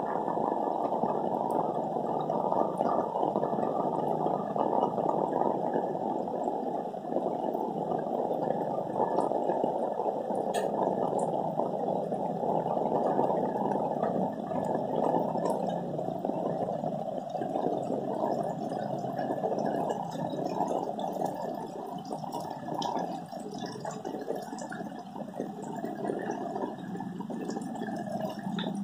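Rain falling in a steady, dense watery patter that does not let up.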